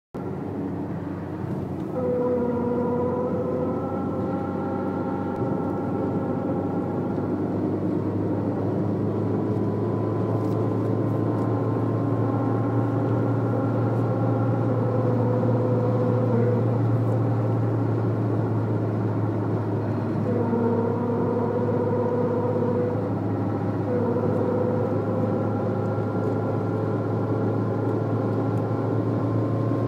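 Citroën Saxo at highway speed: a steady low engine and road drone, with a pitched hum from the front that comes and goes several times for a few seconds at a stretch. The noise came from a faulty left front drive shaft and was cured by replacing it.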